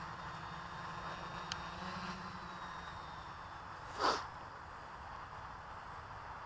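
Faint, steady whir of a quadcopter hovering at a distance, heard as an even hiss, with a small tick about one and a half seconds in and a brief loud rustle of handling noise about four seconds in.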